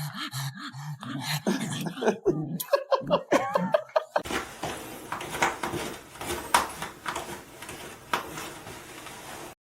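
A person laughing in short bursts. About four seconds in it cuts to a steady background hiss with scattered clicks and knocks.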